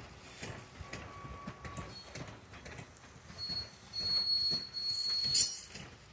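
Railroad passenger train's wheels squealing against the rails as it rolls along, over a rhythmic low knocking. A thin high squeal sets in a little past halfway and peaks sharply near the end.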